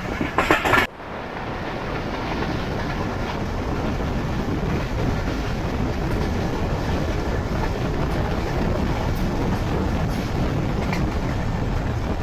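Jaffar Express passenger train running along the track, heard from on board as a steady noise of wheels and carriages. A louder stretch cuts off abruptly about a second in.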